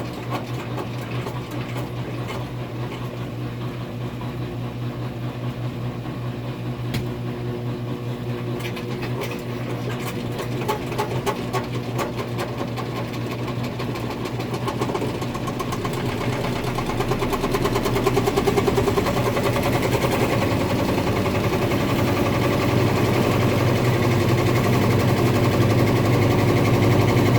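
A machine running steadily with a fast, even rhythm, growing louder about two-thirds of the way through.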